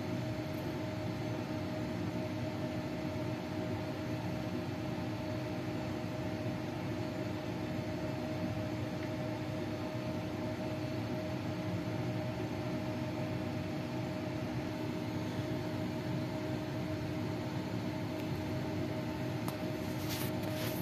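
Steady machine hum with two steady tones over an even background noise, like a fan running in a small room; a few faint clicks near the end.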